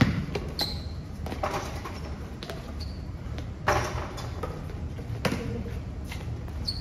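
Basketball bouncing on a concrete court, a handful of uneven bounces, the loudest right at the start and about halfway through.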